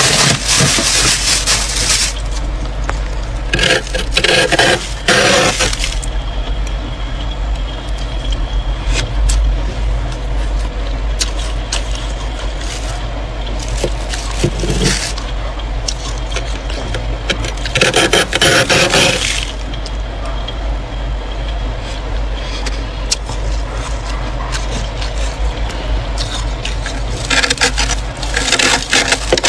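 Metal spoon scraping and crunching thick frost off a freezer wall, stroke after stroke, with louder spells of scraping at the start, about halfway through and near the end.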